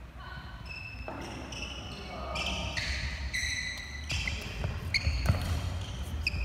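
Badminton shoes squeaking on a wooden court floor during a doubles rally, with several sharp racket hits on the shuttlecock in the second half.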